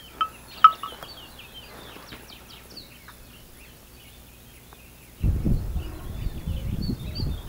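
Several birds chirping and singing in short, repeated notes, with two louder sharp calls right at the start. About five seconds in, an uneven low rumbling noise sets in over the birdsong.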